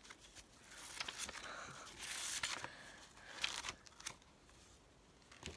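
Paper rustling and crinkling in a few short bursts as a paperback journal with torn strips hanging from a page is handled and its pages are turned.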